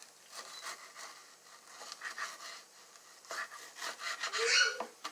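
Kitchen knife sawing back and forth through raw chicken breast on a cutting board, a series of rubbing strokes. A brief voice near the end.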